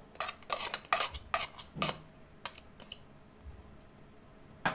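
Metal spoon clinking and knocking against stainless steel bowls: a quick run of light clinks in the first two seconds, a couple of fainter ones after, then one sharper clink near the end.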